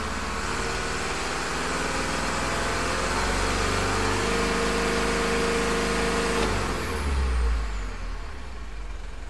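Mitsubishi Fuso truck's 4M50 turbodiesel revved slowly up, held at high revs for about two seconds, then let drop back to idle about six and a half seconds in, with a faint high whine falling away as it slows. This is a free-revving boost test in which the turbo is underboosting, not building enough pressure.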